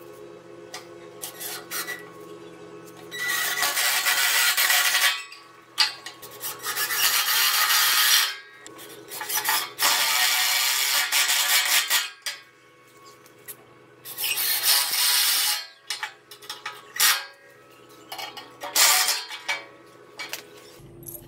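Cordless drill driving screws into wooden boards, in four runs of about two seconds each and two shorter ones near the end, with small clicks of handling between.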